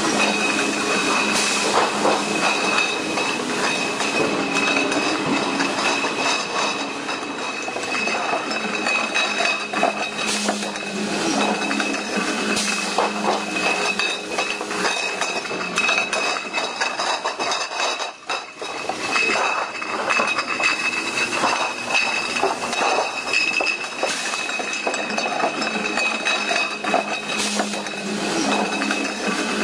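Bottling-line machinery running with a steady high whine, glass bottles clinking and rattling against each other; the noise drops away briefly about eighteen seconds in.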